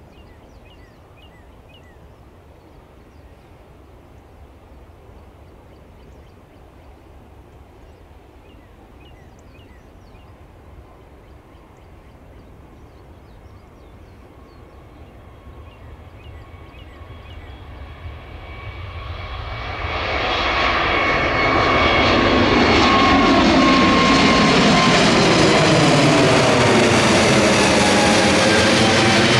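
Airbus A321neo taking off on its Pratt & Whitney geared turbofan engines at takeoff power: faint and distant at first, then swelling to a loud jet roar from about two-thirds of the way in as it climbs out overhead, with sweeping, wavering tones as it passes.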